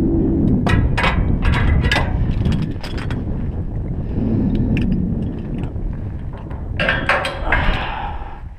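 Climbing hardware clicking and clinking against the steel members of a lattice tower, several sharp metal clicks in the first few seconds, over a low steady rumble. A louder scraping rasp comes near the end.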